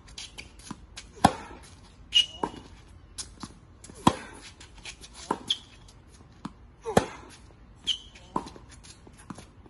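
Tennis practice on a hard court: sharp knocks of racket strings on the ball and the ball bouncing, a hit every second or so, the loudest ones from the near player roughly every three seconds. A few short sneaker squeaks on the court surface come between the hits.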